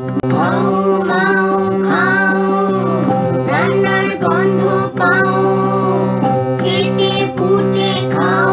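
Intro jingle: a high voice sings a melody in short phrases over plucked-string accompaniment with steady held notes underneath.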